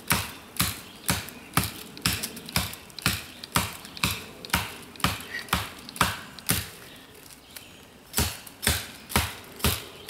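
United Cutlery Black Ronin stainless-steel tomahawk chopping into the base of a tough sapling: quick repeated strikes, about two a second. The strikes stop for about a second and a half roughly two-thirds of the way through, then start again.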